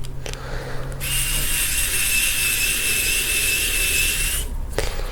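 Small cordless electric screwdriver's motor and gears whirring with a steady high whine for about three and a half seconds, starting about a second in, as it drives a screw. The pitch rises slightly just before it stops.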